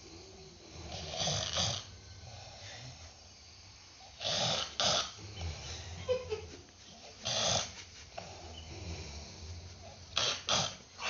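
A person snoring: harsh, noisy snores about every three seconds, several coming as quick double snores.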